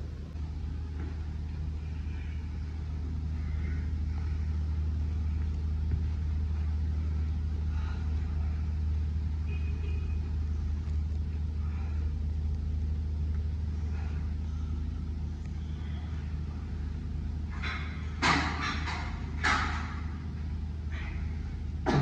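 Steady low rumble of a vehicle on the move. A few short knocks come about four seconds before the end.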